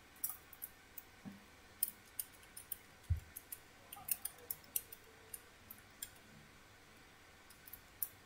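Irregular run of light clicks from keys being tapped, about twenty in all, most in the first six seconds, as a calculation is keyed in. A soft low thump about three seconds in.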